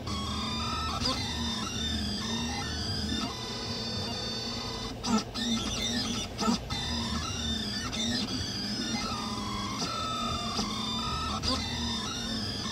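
FDM 3D printer printing, its stepper motors whining in tones that glide up and down as the print head moves, over a steady hum. A few sharp clicks come about halfway through.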